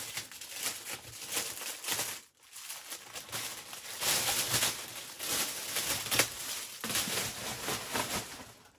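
Clear plastic bag crinkling and rustling as a boxed item in plastic packaging is handled and slid out of it, with a short pause about two seconds in.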